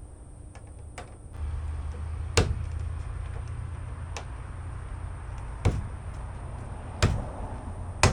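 Jeep Cherokee XJ drip rail trim being tapped and pressed onto its retaining clips: six sharp knocks about a second and a half apart, over a low steady rumble.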